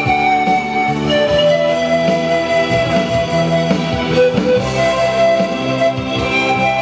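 Pan flute playing a melody of held notes, over a lower accompaniment.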